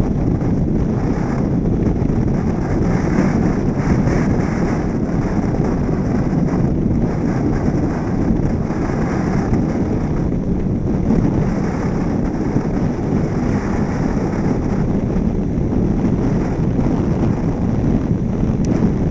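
Steady wind rush over the microphone of a camera mounted on the outside of a moving car, mixed with the car's road and tyre noise.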